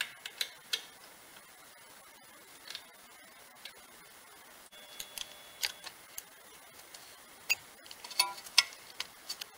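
Scattered faint metallic clicks and scrapes of a screwdriver prying at a BMW E60 front brake caliper, working its spring retaining clip off. The clicks come in small clusters near the start and again near the end.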